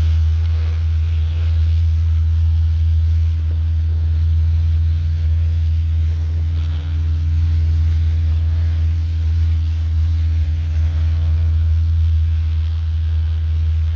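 High-pressure washer running steadily, with a low drone from its motor and pump under the hiss of the jet blasting moss and lichen off roof tiles.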